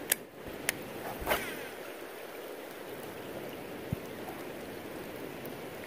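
Steady hiss of rain falling on a flowing river. Three sharp clicks in the first second and a half come from a baitcasting reel being handled, and there is one soft low thump near four seconds.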